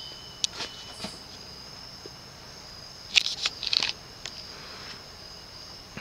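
1984 Panasonic Lancelot F-4225 ceiling fan with a cast-aluminium spinner motor, running on its low speed and almost silent. A steady high-pitched tone runs throughout, with a few sharp ticks near the start and a quick cluster of them about three seconds in.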